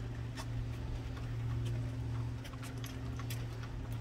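Sparse, irregular metallic clicks of a socket wrench and extension being worked on ignition-coil hold-down bolts as they are tightened, over a steady low hum.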